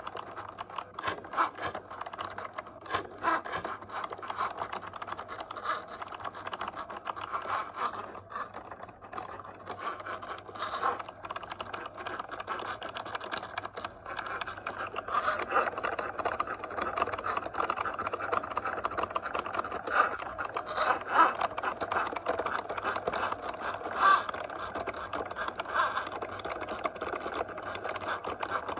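Cricut Joy cutting machine running a cut: its motors whir in short stops and starts as the mat is fed back and forth and the blade carriage moves across, cutting a design into the sheet. The whirring comes with a steady stream of small clicks.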